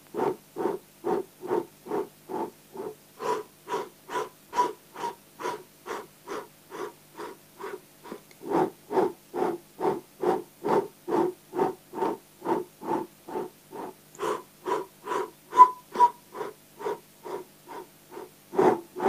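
A man's segmented breathing in and out through the mouth: short, even puffs, about two and a half a second, steady through the whole stretch. This is the rhythmic breath of a kundalini yoga breathing meditation.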